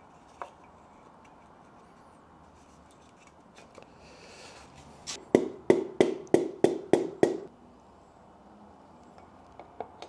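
A piston being tapped down into a Ford 302 V8 block's cylinder bore through a ring compressor with a hammer: about seven quick knocks in two seconds, a little past the middle, as the ringed piston is driven into the bore.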